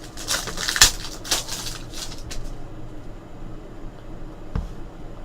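Foil trading-card pack being torn open and crinkled, with the cards handled: a flurry of crackling rustles and sharp ticks over the first two seconds or so, then quieter handling and one dull knock near the end.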